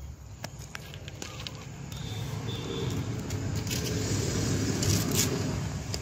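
A motor vehicle's engine running steadily, getting louder over a few seconds as it draws near, with a few short clicks.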